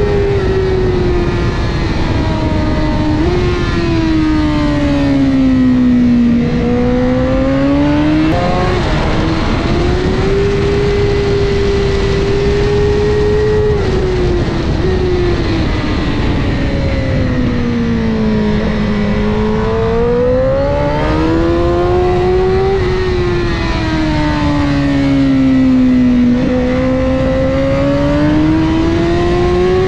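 Honda CBR1000RR superbike's inline-four engine heard onboard at speed on a race track. Its note falls away as the rider slows into corners and climbs again under acceleration, several times over, with a steady rush of wind noise underneath.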